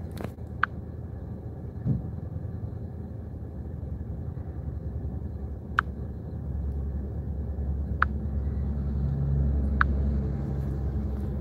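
Car engine idling, heard from inside the cabin as a steady low rumble that grows louder about two thirds of the way through. A few short sharp clicks sound over it, a couple of seconds apart.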